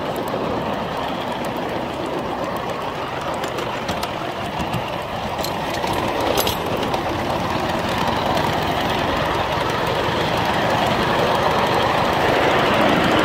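A 5 inch gauge live steam locomotive and its riding car running along the rails with a steady clatter, with a few short clicks. It gets a little louder from about six seconds in.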